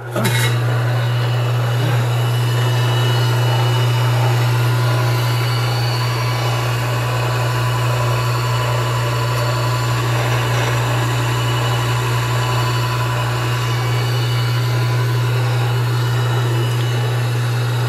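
Tsung Fu universal tool and cutter grinder switched on and running steadily, its 1.5 hp motor and wheel spindle giving an even hum and whir that comes in right at the start.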